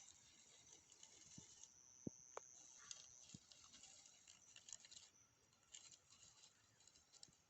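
Nine-banded armadillo rooting through dry leaf litter: faint, quick rustling and scratching with a few soft knocks.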